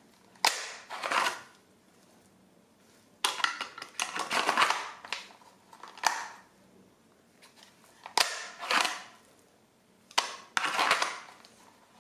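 Replica pistol repeatedly drawn from and pushed back into a Kydex thigh holster with a spring-loaded retention hood: a sharp click followed by a short scrape of hard plastic on Kydex, five or six times, every two to three seconds.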